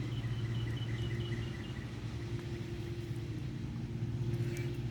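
A steady low hum like an idling engine or motor. Over the first two seconds a bird gives a quick run of short, even chirps on two pitches.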